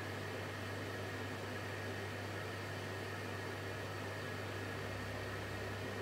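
Electrolux PerfectCare 600 front-loading washing machine running mid-program, a steady, even hum with no breaks.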